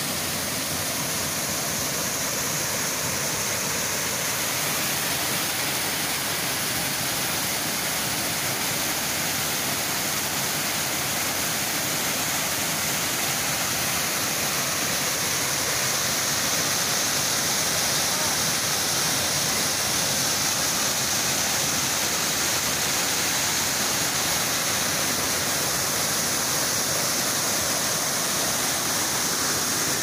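Water rushing steadily over a small rocky waterfall and cascades, growing slightly louder past the halfway point.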